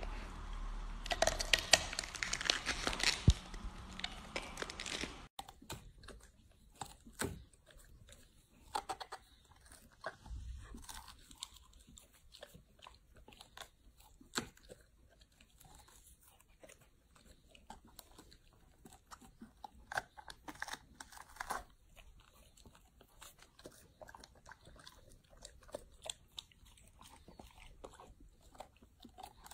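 Golden retriever biting and chewing raw vegetables with crisp crunches. For the first five seconds it chews a red cabbage, with dense, loud crunching. After a cut it gnaws a peeled bamboo shoot, with sparser, quieter single crunches.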